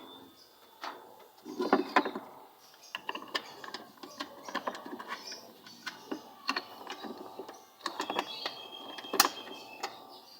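Irregular clicks, knocks and scraping of hand work on washing machine parts during a belt and pulley repair, with one sharp click about nine seconds in.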